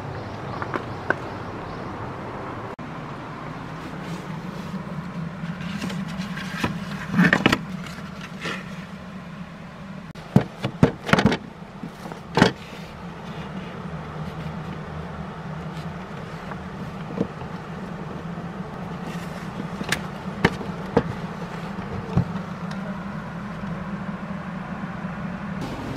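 A motor vehicle engine running with a steady low hum, broken by several sharp knocks or clicks, most of them bunched about a third of the way in and a few near the end.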